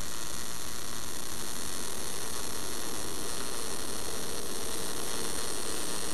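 MIG welding arc in short-circuit transfer crackling steadily on a vertical-down pipe root pass. This is the smooth, consistent crackle of a correctly set arc at 16–17 volts. A steady electrical hum runs underneath.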